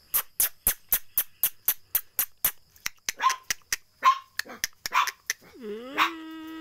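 Puppies yapping in short, high barks and yelps. They are preceded by a quick run of about ten sharp, evenly spaced clicks, about four a second. Near the end, a long cry rises in pitch and then holds steady.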